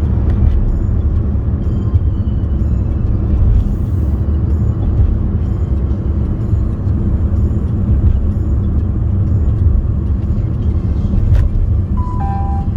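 Steady low rumble of a car being driven, engine and road noise heard inside the cabin. Near the end, a short electronic chime of two falling notes.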